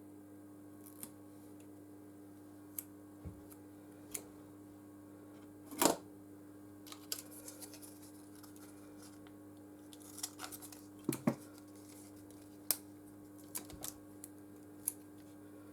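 Scissors snipping the adhesive strips for a phone battery to length: a scattered series of small clicks and snips, the loudest about six seconds in and a cluster around ten to eleven seconds.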